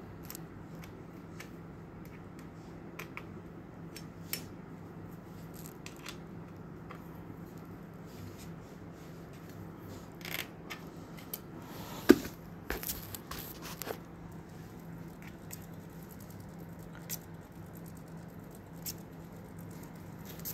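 Scattered small clicks and taps of hands and a thin tool working a bicycle rim brake's arm and pad, with a sharper, louder click about twelve seconds in. A faint steady hum lies underneath.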